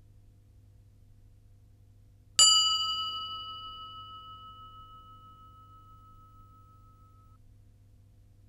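A single bell strike about two and a half seconds in, its clear tone ringing on and fading away over about five seconds. It is the cue for the learner to answer true or false.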